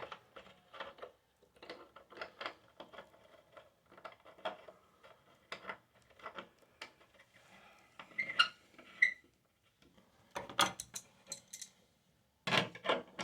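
Small metal clicks, clinks and scrapes of a faucet aerator being handled and threaded back onto a lavatory faucet spout by hand. Two brief ringing clinks come just past the middle, and a cluster of sharper clicks near the end.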